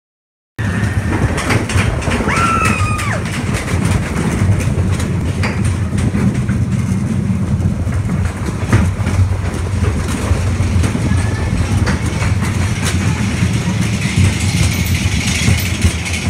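Steady low rumble and clatter of a wooden roller coaster train running on its track, with scattered clicks and a brief high-pitched tone about two seconds in.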